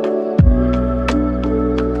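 Background music: soft electronic track with sustained synth notes, a bass line and a steady beat.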